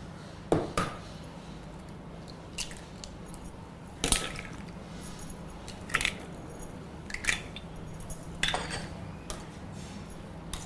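Eggs being cracked against a stainless-steel blender jar and dropped in: a handful of sharp clicks and knocks, a second or two apart, over a steady low hum.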